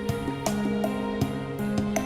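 Background music: a plucked-string instrumental track with a steady beat.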